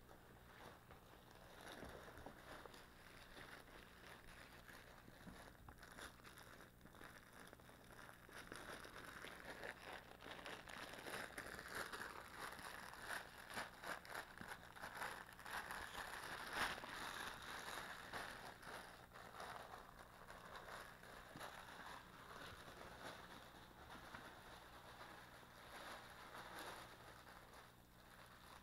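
Faint rustling and scuffling of puppies playing: small paws scrabbling on the rug and floor and fabric plush toys being pulled and chewed, with scattered small crackles that grow somewhat busier midway.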